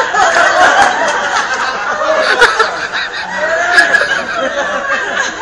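A crowd of guests laughing together, many voices at once.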